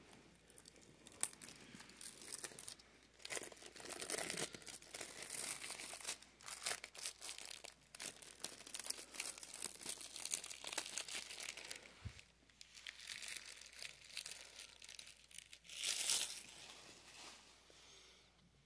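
Clear plastic shrink-wrap being torn and peeled off a Blu-ray case, crinkling in irregular bursts, with a louder crinkle near the end.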